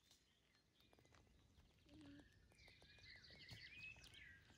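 Near silence, with faint bird chirps in the background starting in the second half.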